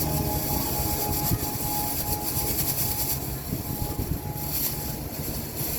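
ATASD amphibious air-cushion vehicle's engine and propeller running with a steady drone that slowly fades away.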